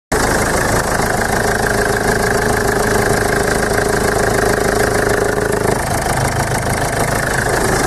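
2010 Ford Ranger engine idling steadily, heard from the open engine bay, with a steady whine that stops about six seconds in.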